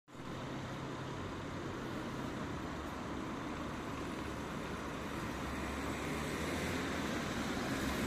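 Steady outdoor background noise: an even hiss with a low rumble underneath, with no clear clicks.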